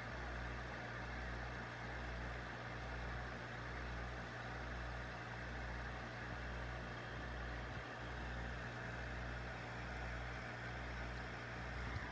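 Aquarium pump humming steadily with a slow, even throb, over a faint hiss of bubbling water.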